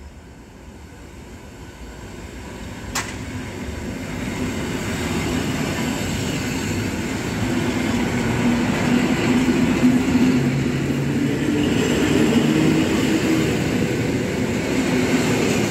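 A Polregio electric multiple unit passing close by on the near track. Its wheel-on-rail rolling noise grows louder as it approaches, with a single sharp click about three seconds in. A steady low hum with several held tones then sits under the rolling noise as the carriages go by.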